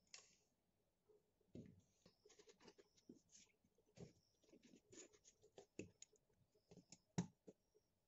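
Faint, irregular small clicks and taps of a plastic Nikon 18-55mm AF-P camera lens being handled and set down, and a small screwdriver working at the screws of its rear mount. The sharpest tap comes about seven seconds in.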